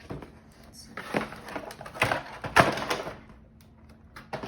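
Hands rummaging through a keyboard's cardboard box and packaging: a run of knocks and rustles, the loudest about two and a half seconds in.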